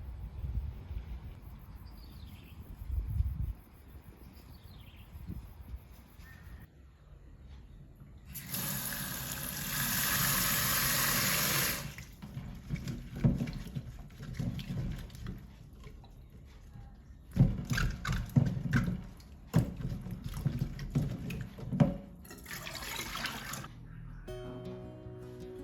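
Water running for about three seconds, as from a tap into a sink. Then a run of irregular knocks and clatter, a second brief burst of running water, and acoustic guitar music starting near the end.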